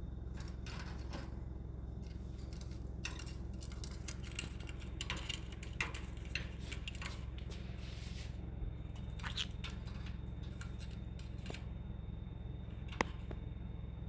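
A run of small, sharp clicks and scrapes, denser in the middle, with one sharper click near the end, over a steady low hum.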